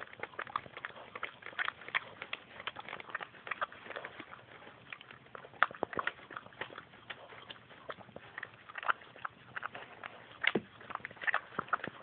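Mother dog licking a newborn puppy still in its birth membrane: irregular wet clicks and smacks, several a second.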